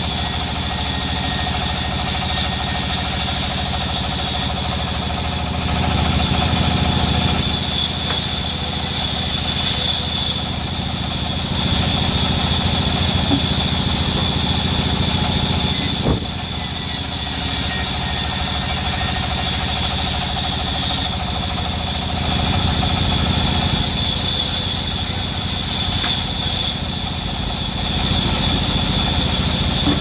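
Sawmill band saw running and slicing red mahogany boards lengthwise: a steady machine drone that swells and eases every few seconds as boards are fed through the blade. A single sharp knock comes about sixteen seconds in.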